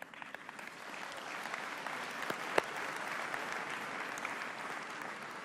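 A large audience applauding, the clapping building over the first second and then holding steady. There is one sharper clap about two and a half seconds in.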